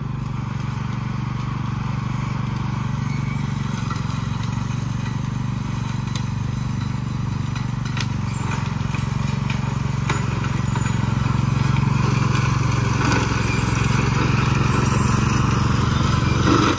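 Small riding lawn mower engine running steadily under load as it cuts tall, dense grass, growing louder as the mower comes closer, with a few scattered sharp clicks.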